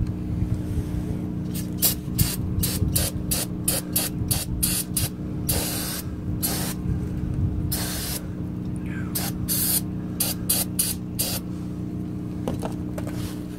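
Aerosol can of brake cleaner sprayed in a long series of short hissing bursts, roughly three a second, with a couple of longer sprays around the middle.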